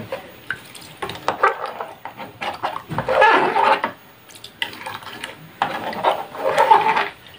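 A steel spoon stirring rice, soya chunks and vegetables in water in an open pressure cooker: liquid sloshing with clinks of the spoon against the pot, in several spells of stirring.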